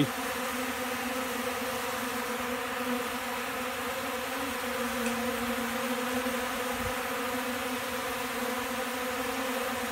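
Many honeybees buzzing close up as they crowd onto a pollen substitute: a steady, even-pitched hum.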